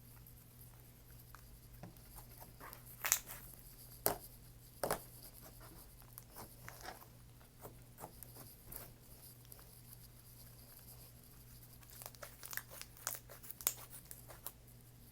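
Soft, dense butter slime being handled and squeezed, giving faint squishes and scattered sharp little pops and clicks, a few louder ones about three to five seconds in and a quick run of them near the end.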